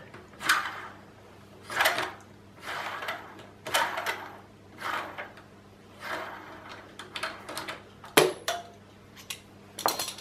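Hand tap being turned and backed out of a brake caliper thread with a T-handle tap wrench: short rasping, scraping noises about once a second. A sharp metal clink about eight seconds in, as tools are handled.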